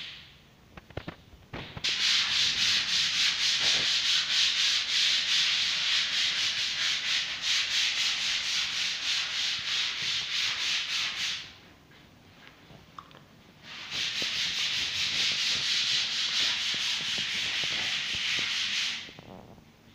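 A wall being sanded, with quick back-and-forth strokes of abrasive over the surface in two spells and a short break near the middle.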